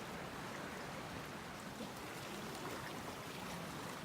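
Steady rush of a flood-swollen creek's running water.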